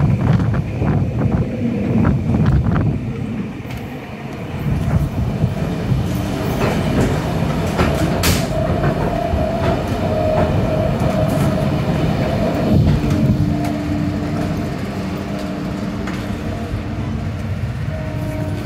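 Double-deck passenger train running, heard from inside the carriage: a steady rumble of wheels on track, with a run of sharp clicks in the first few seconds and a single sharp click about eight seconds in. A steady whine joins from about six seconds in.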